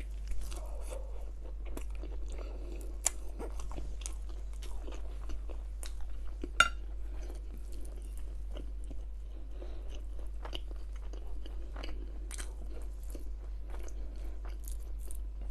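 Close-miked chewing and mouth sounds of a person eating chicken tikka masala, rice and naan, with scattered sharp wet clicks and crunches all the way through, over a steady low hum.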